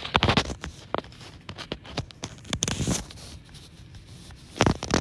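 Irregular light taps and clicks of typing a name on a phone's on-screen keyboard, with a louder pair of taps near the end.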